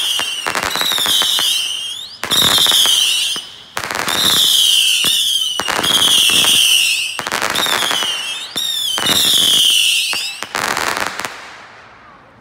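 Saturn missile battery firing a rapid string of high whistling rockets, with crackle from their glitter tails. The volleys stop about eleven seconds in.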